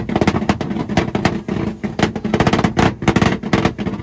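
Honda Civic held on its two-step launch-control rev limiter: a rapid, uneven string of loud bangs and pops from the exhaust as the limiter cuts the ignition in and out.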